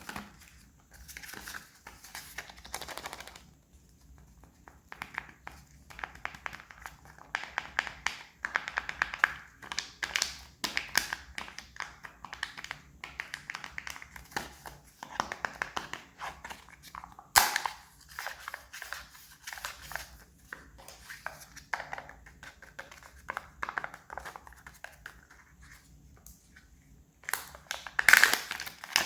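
Foil wrapper of a Kinder Surprise egg crinkling as it is handled and unwrapped, in an irregular run of small rustles and crackles. A few sharp clicks stand out, one about halfway through and another near the end.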